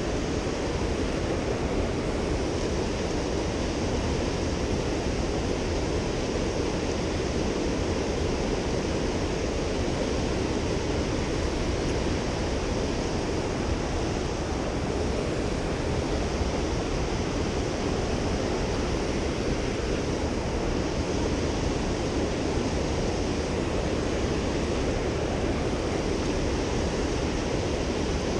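Mountain river water rushing past in a steady, unbroken flow.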